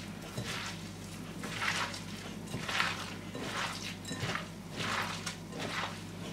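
Hands squeezing and tossing salted, spiced sliced onions in a glass bowl, making a wet squishing rustle about once a second. The salted onions are giving off their juice. A low steady hum runs underneath.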